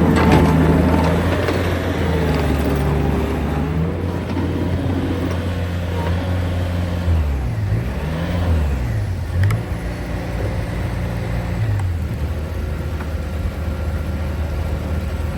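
An engine running steadily. Its speed drops and rises a few times about halfway through, then settles back to a steady note.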